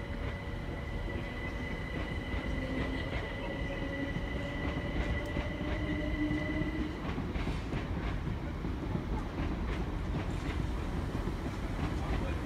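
Electric multiple-unit passenger train pulling away: its traction motors whine, the lowest tone rising a little, for about the first seven seconds. Then comes a run of sharp wheel clicks and clatter over rail joints and points as it moves off, over a steady rumble.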